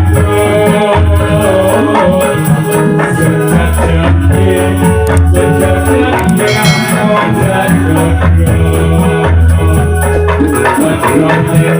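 Instrumental Ndolalak dance accompaniment: steady drumming and a shaken rattle rhythm over held low bass notes, with no singing.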